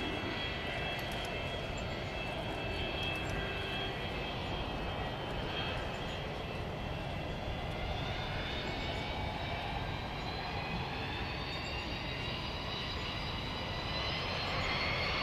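Boeing 787-9 Dreamliner's twin turbofan engines passing overhead: a steady rush of jet noise with a high whine that rises gradually in pitch over the second half.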